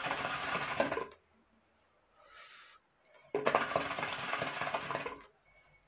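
Hookah water bubbling in the glass base as the smoker draws hard on the hose: two long pulls, about a second and a half and then two seconds, with a pause between.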